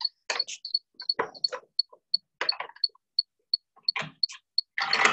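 A fuel injector being clamped in a steel bench vise: scattered metallic clicks and knocks as it is set in the jaws and the vise handle is worked, with a longer, louder clatter near the end. A faint, regular high-pitched tick repeats about three times a second.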